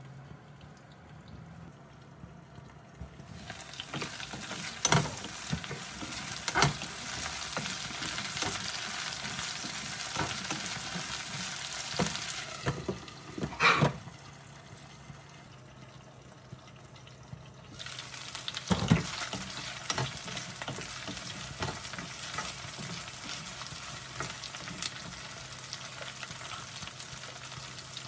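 Food sizzling in hot oil in a pan. The sizzle starts suddenly about three seconds in, dies down for a few seconds around the middle, then picks up again, with occasional sharp knocks of a utensil against the pan as the food is stirred.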